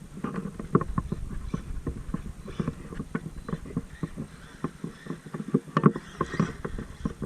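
Traxxas MAXX RC truck clattering as it drives, with a quick, irregular run of knocks and clacks over a low rumble.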